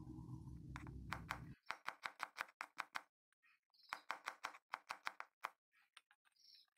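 Chef's knife rapidly chopping shallots on a wooden cutting board: two quick runs of sharp taps, about six a second, with a short pause between and a few fainter taps near the end. A low background hum cuts off about a second and a half in.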